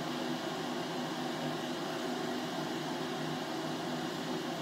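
Steady whirring hum and hiss of a kitchen cooker hood's extractor fan, running over a lit gas hob.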